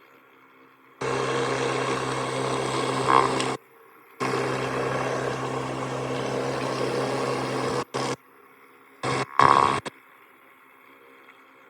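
Pressure washer spraying a patio: a steady hum with a hiss of water. It runs in two long stretches, stops abruptly, then comes back in two short bursts.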